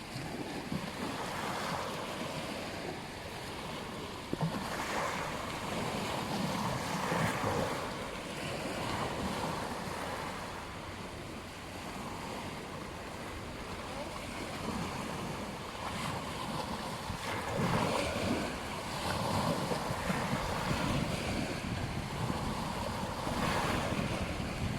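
Ocean surf breaking and washing on a beach, a steady rush of water that swells every few seconds as waves come in.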